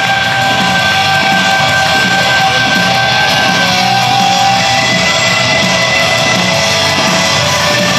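Loud rock music with electric guitar and a steady beat.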